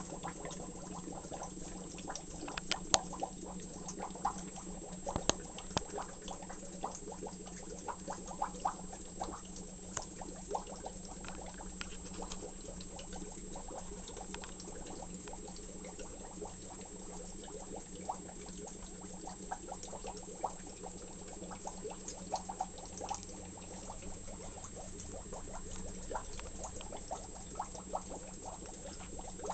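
Aquarium water bubbling and trickling, with many small pops and drips, over a steady low hum.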